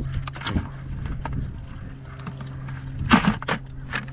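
Metal crab tongs clicking and scraping among live blue crabs in a bucket, with a louder scrape about three seconds in, over a steady low hum.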